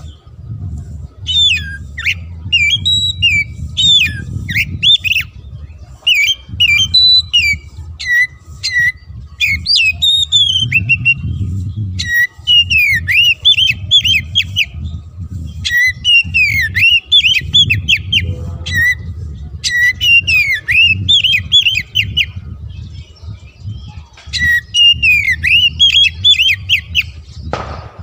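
Oriental magpie-robin (kacer) singing loudly: about six bursts of rapid, sharp whistled notes, each a few seconds long, with short pauses between them.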